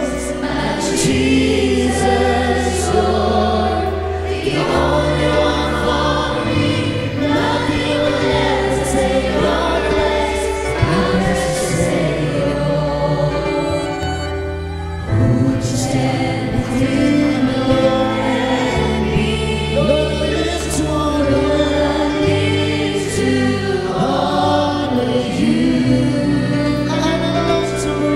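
Live Christian worship band: a group of singers on microphones singing together over keyboard, guitars and a steady bass line. About halfway through the accompaniment briefly thins and drops in level, then the full band comes back in.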